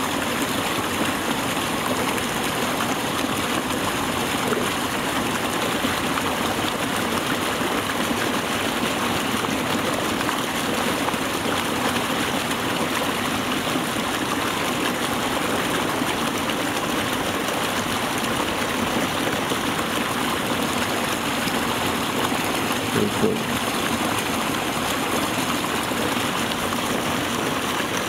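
Water flowing steadily through a narrow irrigation channel, a constant rushing hiss.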